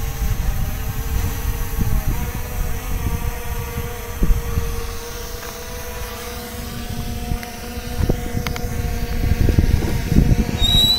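SJRC F22 brushless quadcopter drone's propellers humming steadily, under heavy gusty wind buffeting the microphone. A short high beep sounds near the end.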